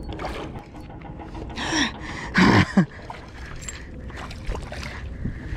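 A hooked mangrove snapper thrashing and splashing at the water's surface as it is played in on a light spinning rod, in a couple of splashy bursts about two seconds in, alongside a couple of short grunts.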